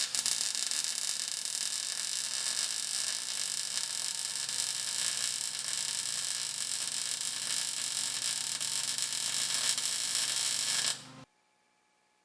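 A steady hiss with a faint low hum under it, starting abruptly and cutting off suddenly about eleven seconds in.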